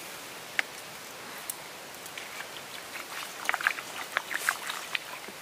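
Hot frying pan on campfire embers hissing and sizzling as water steams off it, with scattered sharp crackles and pops that come thickest about three to five seconds in.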